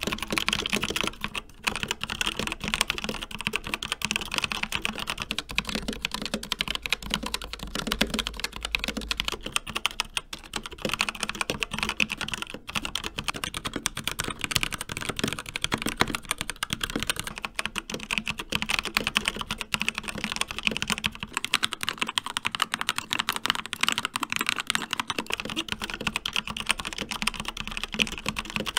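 Continuous fast typing on mechanical keyboards, one board after another: Kailh Brown switches, then ROG RX Red optical switches, then Kailh Box Black switches, then Gateron Red switches. The tone of the clatter changes at each switch-over.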